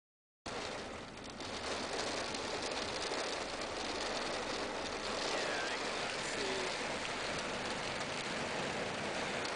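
Rain falling on a car's roof and windows, heard from inside the car: a steady hiss that starts abruptly about half a second in.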